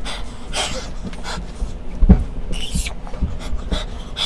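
A person panting and hissing sharp breaths through the mouth from the burn of extremely spicy noodles, about four breaths, with a low thump about two seconds in.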